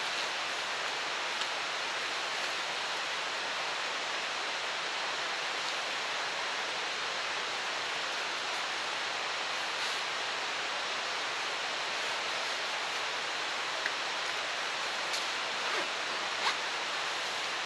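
Steady rushing hiss at an even level, with a few faint clicks and small knocks in the last few seconds.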